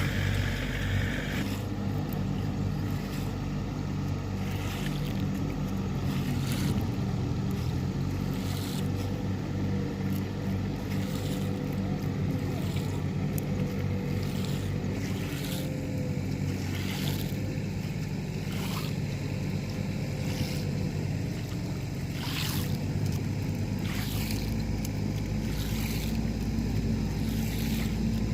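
A motor running steadily at an even pitch, with scattered short knocks over it.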